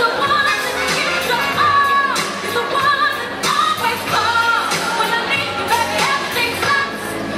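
Waltz song: a singer's melody over an instrumental backing, played for a quinceañera waltz dance.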